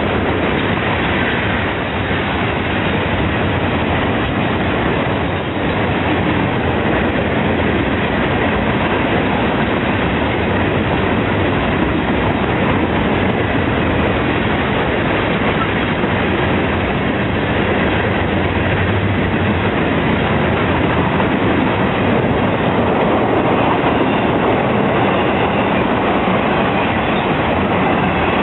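A long train rolling past close by, its wheels running on the rails in a loud, steady, unbroken noise.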